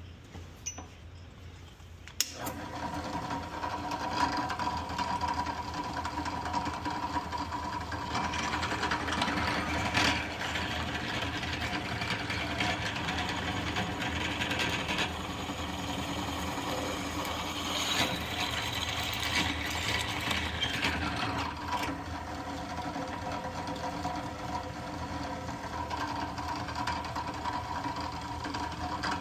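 A machine switches on with a sharp click about two seconds in, then its motor runs steadily with a hum and several held tones.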